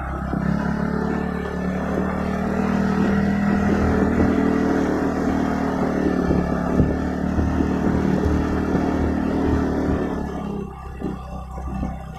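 Motor scooter's engine running steadily under throttle while riding, with occasional jolts, the engine note dropping away about ten seconds in.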